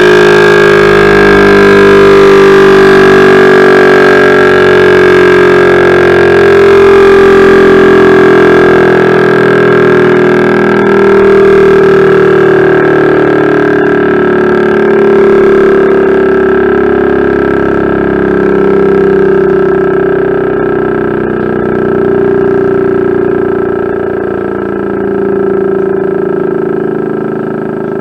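Electric rotor-and-stator civil defence siren sounding one steady howl. Its loudness swells gently every few seconds and slowly fades toward the end, while the pitch holds almost level.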